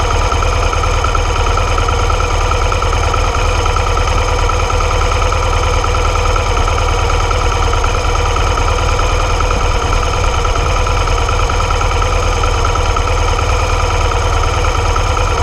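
BMW R 1200 GS boxer-twin engine idling steadily in neutral with the motorcycle standing still.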